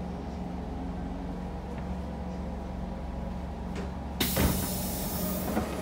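Siemens C651 train carriage with a steady low hum, then about four seconds in a sudden loud burst of air hiss from the train, lasting about a second and a half.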